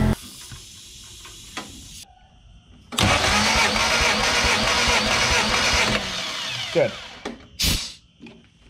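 1968 Austin-Healey Sprite's four-cylinder engine cranking over on the starter for about three seconds during a compression test, starting abruptly about three seconds in and stopping around six seconds. The engine builds the compression that the gauge reads, about 150 psi, a healthy reading after the head gasket replacement.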